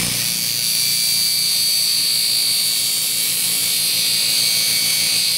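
Steel fuller being ground cold against a 100-grit zirconia belt on a 10-inch expander wheel driven by a 1/2 hp Baldor grinder: a steady high grinding hiss with a thin whine over the motor's hum.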